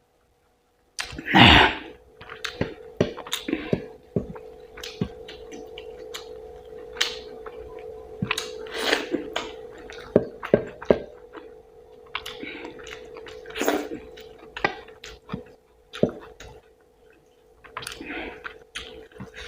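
Close-miked chewing and wet mouth sounds of eating rice and curry, with many short smacks and clicks starting about a second in. The loudest bite comes about a second and a half in. A steady low hum runs underneath.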